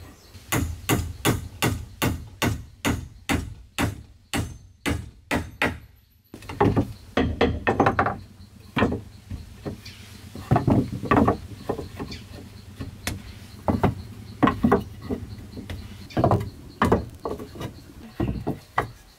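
Repeated blows of a tool on wood: a steady run of about three strikes a second, then after a brief break a slower, more uneven series of strikes.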